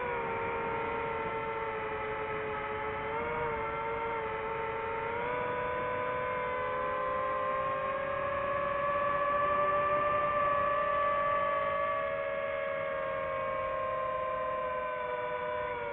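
DJI FPV drone's motors and propellers whining steadily, the pitch rising and falling slowly with the throttle: highest about two thirds of the way through, easing down near the end.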